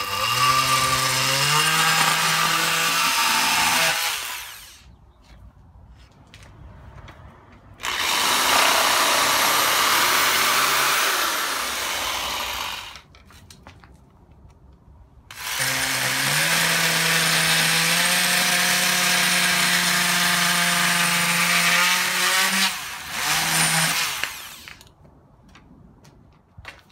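Power-tool cutting in three bursts of several seconds with short pauses. The first is an oscillating multi-tool cutting half-inch drywall, a steady motor hum that steps up in pitch as it starts. The middle burst is a rougher, hissing cut, and the last is a long, steady hum of a cut into a wooden board.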